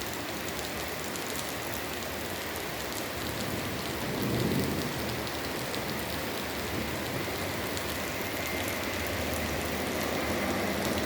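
Heavy rain falling steadily on surfaces, with fine drop ticks throughout. A brief low rumble swells up about four seconds in.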